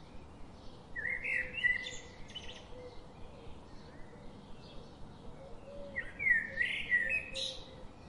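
A songbird singing two short phrases of quick rising and falling notes, one about a second in and the other about six seconds in.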